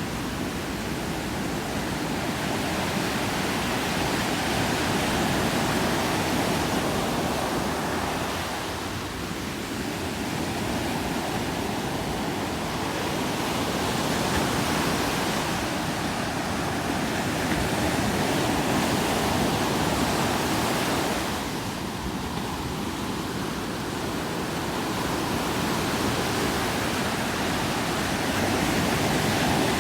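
Ocean surf: waves breaking and washing up a beach as a steady rush that swells and eases slowly, dipping briefly about a third of the way in and again about two-thirds in.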